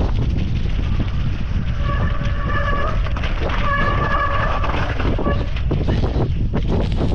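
Enduro motorcycle running hard with heavy wind rush, a steady loud rumble throughout. A held high-pitched sound rises over it twice, about two seconds in and again near four seconds.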